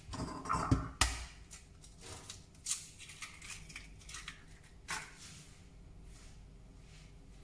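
Scattered clicks, taps and light scrapes of hands working around a plastic mixing bowl and a resting electric hand mixer, which is switched off. The knocks cluster in the first second or so, with a sharper one about five seconds in.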